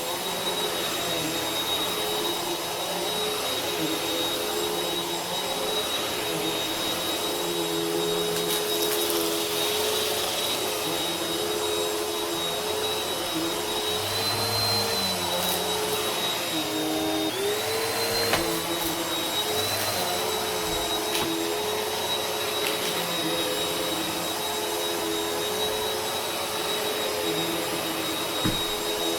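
Vacuum cleaner running steadily, a high motor whine over the rush of suction. About halfway through, the motor's pitch sags briefly and then recovers. A few faint clicks come near the end.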